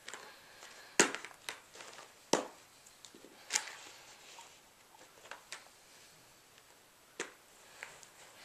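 Plastic Trackmaster toy train track pieces clicking and knocking as they are unclipped and snapped together: a handful of sharp clicks, the loudest about a second in and again just over two seconds in.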